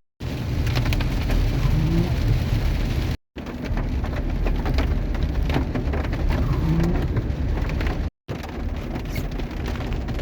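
Car driving in the rain: steady road and engine rumble with rain pattering. The sound cuts out briefly twice, about three and eight seconds in.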